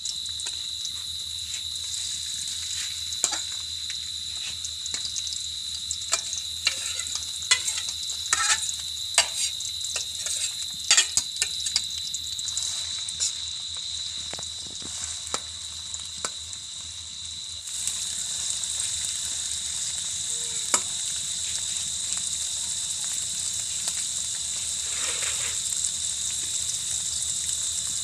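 Small fish frying in hot oil: a steady sizzling hiss with scattered sharp pops and crackles in the first half, and the sizzle grows a little louder about two-thirds of the way through.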